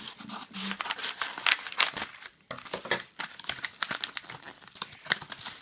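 Wrapping of a small postal parcel crinkling and tearing as it is opened: a quick run of rustles and crackles, louder about one and a half seconds in.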